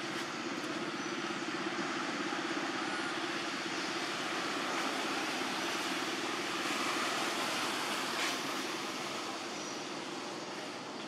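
Steady rumble and hiss of a passing motor vehicle, swelling slightly in the middle and easing off near the end.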